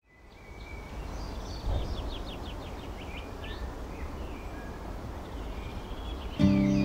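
Outdoor ambience fading in: several birds chirping and singing in quick short phrases over a steady low rumble. Near the end, guitar music starts suddenly.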